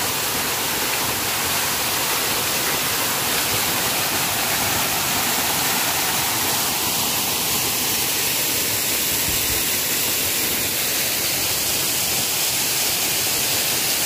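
Waterfall spilling down a rock face into its pool: a steady, unbroken rush of falling water.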